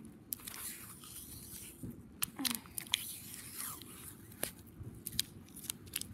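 Blue painter's tape being pulled off its roll and wound around a bat handle: intermittent crackles and ticks as the tape peels away from the roll.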